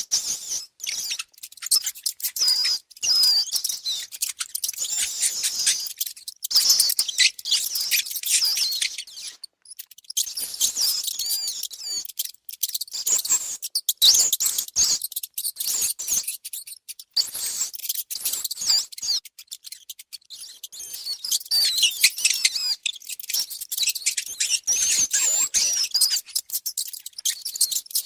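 Mice squeaking: rapid, high-pitched chirping squeaks in dense runs, broken by short pauses.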